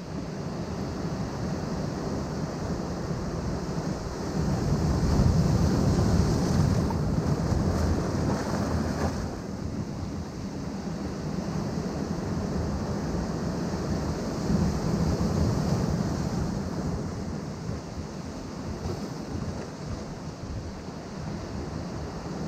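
Ocean waves breaking and washing against rocks, in a continuous surging wash that swells louder twice, with wind on the microphone.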